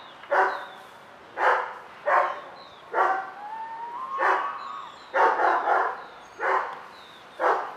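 A dog barking repeatedly, about eight barks at uneven intervals. A faint thin whistle rises in pitch between two of the barks, near the middle.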